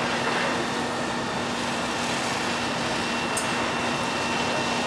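Steady drone of heavy diesel engines running at a constant speed, with a steady hum and higher whine, from fire apparatus pumping water to a ladder's master stream. A brief high squeak about three and a half seconds in.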